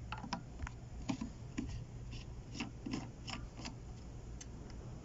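Plastic coolant reservoir cap being screwed shut: a string of small, irregular clicks and light rubbing, thinning out near the end.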